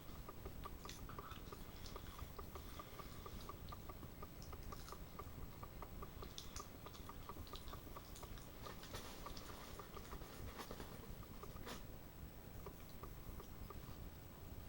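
A person chewing food close to the microphone, faint, with scattered small clicks.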